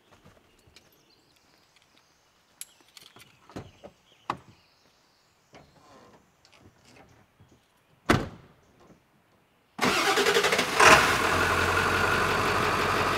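A few quiet clicks and knocks and a louder thump, then an old, loud Ford F-350 diesel truck engine starts nearly ten seconds in, catching at once, revving briefly and settling into a steady idle.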